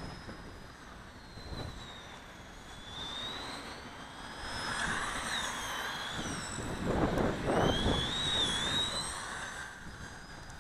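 Small brushed electric motor of a 1/18-scale RC short course truck whining, its pitch rising and falling as the throttle changes, with a louder rushing noise from wind on the microphone around the middle.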